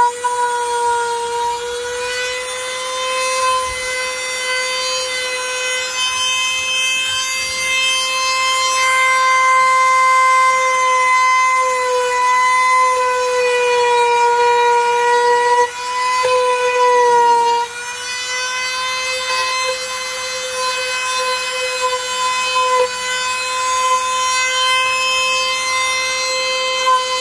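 High-speed power tool motor running with a steady, high-pitched whine, its pitch wavering slightly and dipping briefly twice about two-thirds of the way in.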